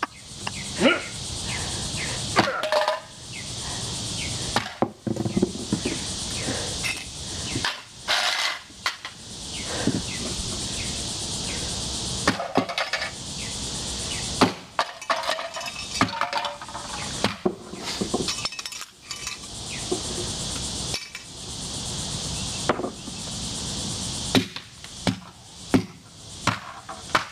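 Sledgehammer blows repeatedly striking a metal tea kettle on the ground, irregular clanking hits a second or more apart as the kettle is beaten flat. A steady high hiss comes and goes behind the blows.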